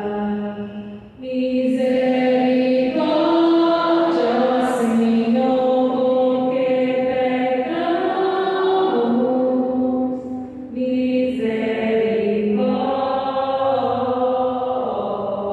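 A woman singing a Portuguese responsorial psalm into a microphone in a slow, chant-like melody of long held notes, pausing for breath about a second in and again about ten seconds in.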